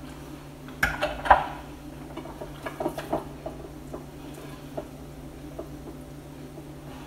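A kitchen utensil clattering and clinking against dishes as marinade paste is scooped out, with a cluster of sharp knocks about a second in, then lighter taps and clicks over the next few seconds. A steady low hum runs underneath.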